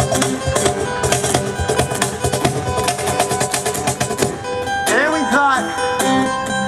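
Acoustic guitar strummed fast with percussion, a busy rhythmic music passage; a voice calls or sings briefly about five seconds in.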